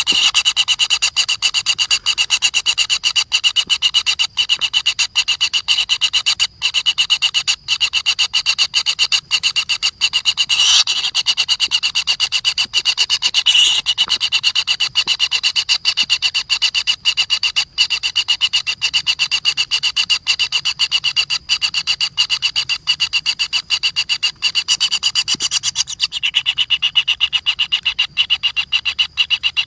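A steady, rapidly pulsed rasping animal call, many pulses a second, with a strong high band. It carries on without a break.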